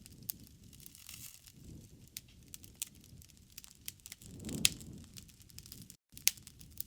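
Wood fire crackling, with irregular sharp pops over a low rumble of the flames. The loudest pop comes about two-thirds of the way through on a brief swell of low sound, and the sound drops out completely for an instant near the end.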